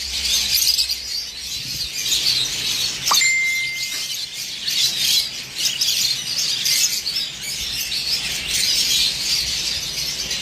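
Many caged birds chirping and chattering together in a continuous dense twitter. About three seconds in, a short steady high tone sounds once.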